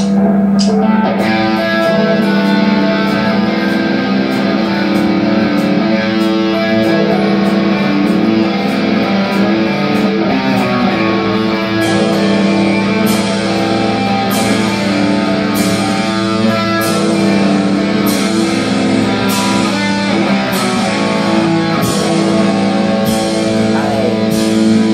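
Ibanez electric guitar playing an improvised rock lead line on A minor pentatonic notes, over a steady low note and a regular beat of hits about once a second.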